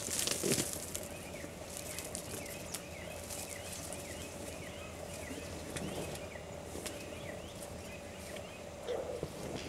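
Great one-horned rhinoceros grazing close by: scattered crunches and clicks of grass being torn and chewed, with a couple of louder rustles near the start and near the end. In the background a bird gives a rapid series of short falling chirps, about three a second, over a steady faint hum.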